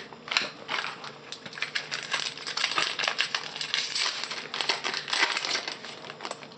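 Foil trading-card pack wrapper crinkling in a dense run of quick crisp crackles as a 2007-08 Topps Chrome pack is handled and opened.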